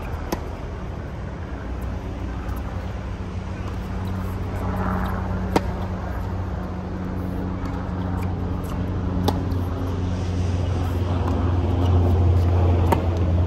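Steady low rumble of distant road traffic with a constant low hum, growing slightly louder near the end. A few single sharp knocks stand out, seconds apart.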